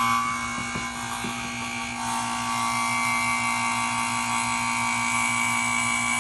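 Electric refrigeration vacuum pump running with a steady, even hum, evacuating a car's A/C system before it is recharged with refrigerant.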